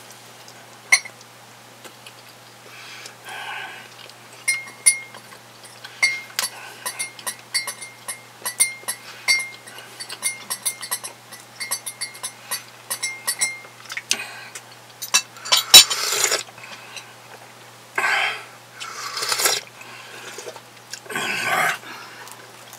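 A metal teaspoon stirring tea in a glass cup, clinking against the glass again and again with a short ringing ping. It is followed by a few short, louder noisy bursts near the end.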